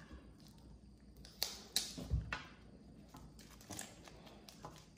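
Plastic candy wrappers crinkling as they are unwrapped by hand, with a few sharp crackles, the loudest about one and a half to two seconds in.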